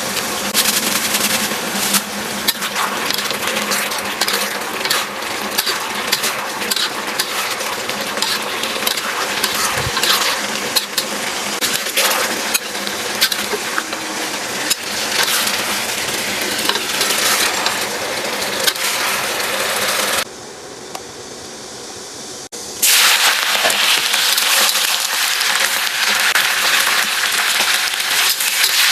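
Food frying in a hot pan: a steady sizzle crackling with many small pops, and metal clinks of a utensil against the pan. It drops to a quieter hiss for about two seconds some twenty seconds in, then comes back loud.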